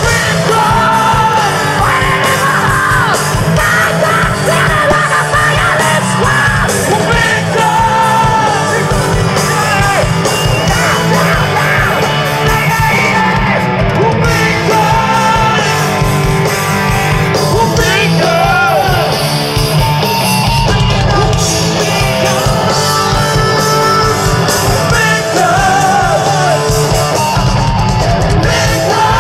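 Live hard rock band playing loud in a large hall or stadium: distorted electric guitar, bass and drums, with a male singer's high, shouted vocals.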